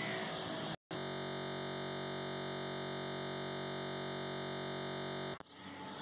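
A steady electronic buzz-like tone, many pitches held perfectly flat at one level, cuts in after a brief dropout about a second in and stops abruptly about five seconds in. Outdoor background noise comes before and after it.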